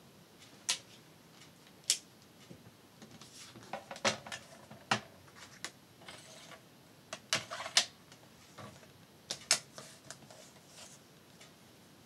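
Hands handling folded patterned paper and setting a Fiskars paper trimmer down on a cutting mat: a string of sharp clicks and taps with paper rustling between them.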